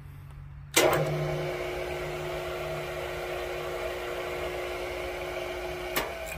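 Freshly rebuilt 3 HP single-phase Frame 563 motor of a DeWalt/Black and Decker 3515 radial arm saw, switched on with a click of the start button just under a second in. It runs with a steady hum and whine, then a click of the stop button about a second before the end cuts the whine off.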